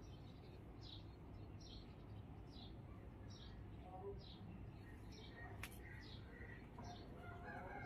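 A bird chirping faintly and repeatedly, short falling chirps a little under once a second, over a low steady background rumble, with a single sharp click a little past halfway.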